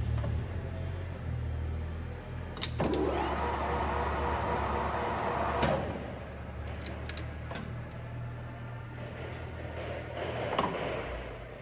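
South Bend 400 metal lathe running with a steady low motor hum. A louder, rougher machine noise comes in from about three to six seconds in, and several sharp clicks land in between.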